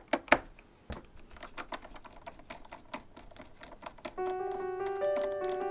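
A rapid, irregular run of small clicks and taps from handling parts while taking apart an iMac, with a few louder knocks in the first second. Piano music comes in about four seconds in.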